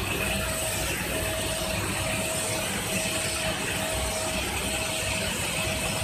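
XTLASER 1500 W fiber laser cutter cutting 6 mm stainless steel sheet: a steady hiss over a low rumble. A short mid-pitched tone repeats about once a second throughout.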